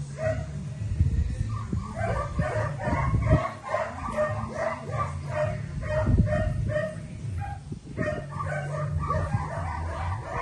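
A dog whining and yipping in rapid short cries, several a second, over a steady low rumble.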